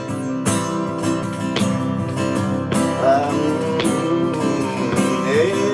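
Acoustic guitar strummed in a steady rhythm, about one strum a second, in an instrumental break of a live folk song. A wordless melody line comes in over it about halfway through.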